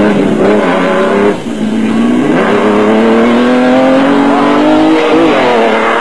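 Off-road race truck's engine at full throttle as it accelerates past, its pitch dropping briefly about a second in and then rising steadily for several seconds.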